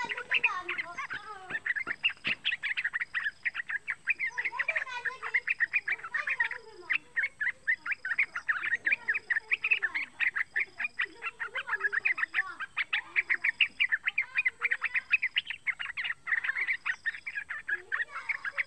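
Young yellow-vented bulbul (trucukan) giving a fast, unbroken chatter of short chirps, the practice song of a juvenile learning to sing.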